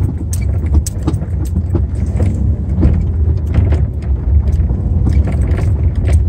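Car driving over a rough, bumpy dirt trail, heard from inside the cabin: a steady low rumble of engine and tyres with frequent knocks and rattles as the car bounces.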